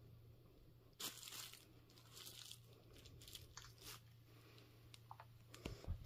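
Faint handling noise: a series of short rustles and crinkles, the first and loudest about a second in, from hands moving among phones on a carpet beside a plastic bubble-wrap bag.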